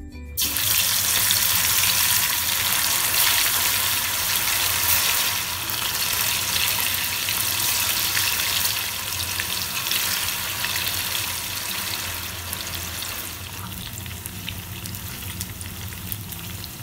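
Marinated chicken pieces deep-frying in hot oil in an iron kadai, sizzling with dense crackles. The sizzle starts suddenly as the chicken goes into the oil, just after the start, and eases gradually toward the end.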